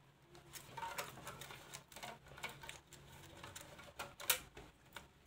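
Light handling noises: the cardboard gift box's flaps rustling and tapping as a rubber band is stretched around the box, with a sharper click about four seconds in.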